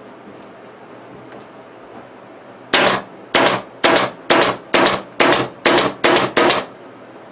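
Pneumatic staple gun firing staples through upholstery fabric into a wooden frame: nine sharp shots about two a second, starting near the middle and stopping shortly before the end.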